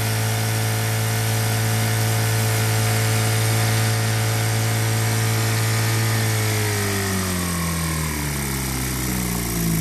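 1940 Johnson 2½ hp outboard motor running steadily at speed, then throttled back about six and a half seconds in, its pitch falling and settling lower toward idle near the end.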